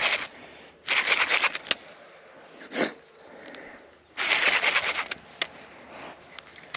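Fishing reel clicking rapidly in two bursts of about a second each, a hooked barramundi being played on the line. A brief sharp sound between them, about three seconds in, is the loudest single moment.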